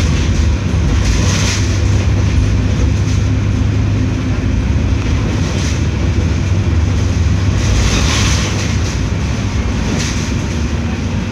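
Mercedes-Benz OF 1721L BlueTec 6 bus's diesel engine running with a steady low hum, mixed with rattling vehicle noise that swells briefly about a second in and again near the end.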